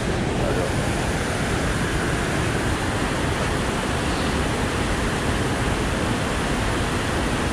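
Water rushing steadily through a river lock and dam: an even, unbroken noise with no other clear sounds.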